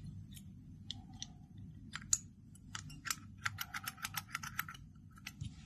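Metal clicking of a bottle-shaped fidget toy's spring-loaded button: a few scattered clicks as it is fitted into the body, then a quick run of about eight clicks a second as it is pressed and pops back repeatedly.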